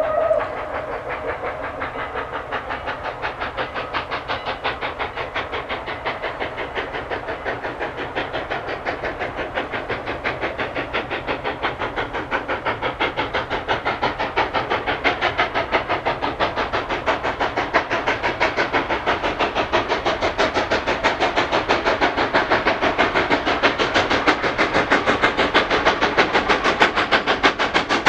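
Norfolk & Western M-class 4-8-0 steam locomotive working a train, its exhaust chuffing in an even rhythm of about four beats a second and slowly growing louder as it approaches. A steam whistle blast cuts off just after the start.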